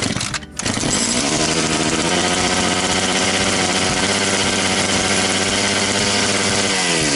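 Echo CS-670 two-stroke chainsaw starting within the first second and running at a steady speed, then winding down as it is shut off near the end. It fires at once now that the cleaned ignition coil ground gives it spark; the starting trouble was a dirty ignition coil.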